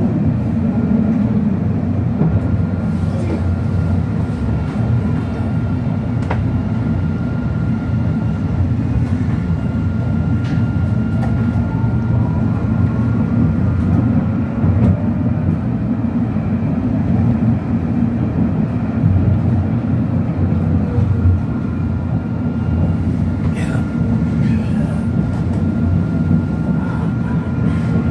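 Tram running along its line, heard from inside the car: a steady low rumble of wheels on rails. Above it are a thin steady whine and fainter whines that slowly rise and fall in pitch.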